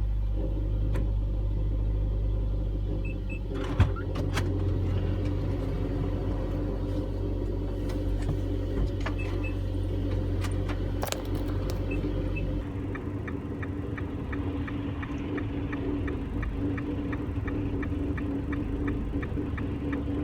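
A car's engine running, heard from inside the cabin as a steady low hum. There is a sharp knock a little under four seconds in. From about two-thirds of the way through, a regular ticking of about two ticks a second joins the hum.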